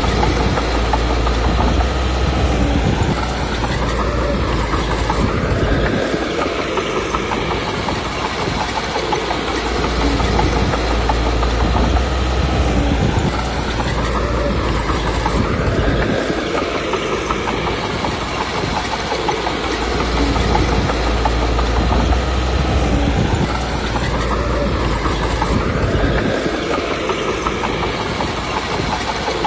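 Komatsu D21P bulldozer's diesel engine running with its tracks clattering, the engine note and track noise swelling and easing in a repeating cycle about every ten seconds as the dozer pushes stone and backs off.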